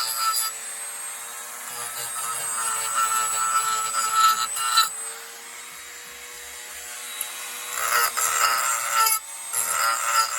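A small electric power tool sanding a pine wood block, with a steady motor whine throughout. A louder rasp comes in stretches as the abrasive is pressed to the wood: at the start, from about 2 to 5 seconds in, and again near the end.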